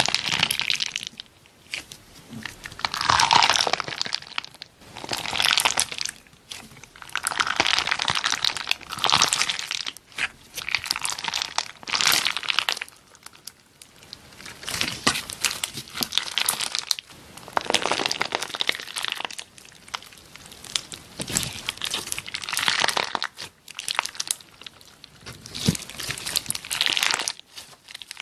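Slime being squeezed and pressed by hand, crackling and crunching in repeated bursts about every two seconds.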